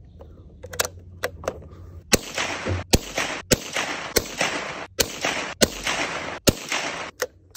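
A Marlin XT-22 bolt-action .22 rifle firing a string of shots in quick succession, about one every half second to second. The shots are a group fired to check where the rifle is hitting while it is being sighted in.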